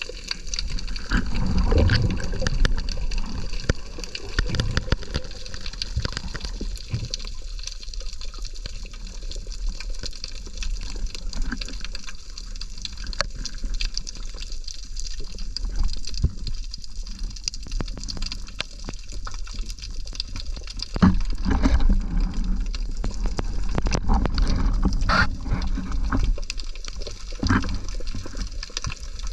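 Water sloshing and rushing around a spearfisher's action camera in shallow sea water, swelling in surges, with scattered small clicks and knocks.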